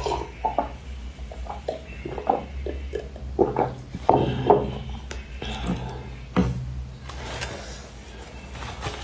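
Close-miked eating sounds from a mukbang of spicy softshell turtle: irregular chewing, lip-smacking and sucking, with a few light clicks of utensils, over a steady low hum.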